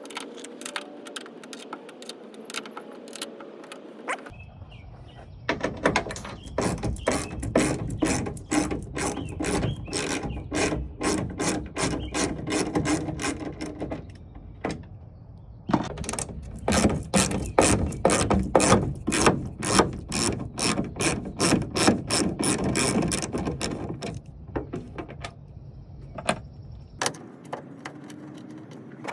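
Ratchet wrench clicking in a steady rhythm, about two or three clicks a second, as it turns taillight mounting screws. The clicking comes in two long runs with a short pause between them, with a few fainter clicks at the start and end.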